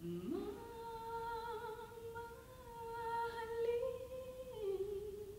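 A woman's unaccompanied voice slides up into one long held note and sustains it, dipping slightly in pitch near the end before fading out: the closing note of an a cappella song.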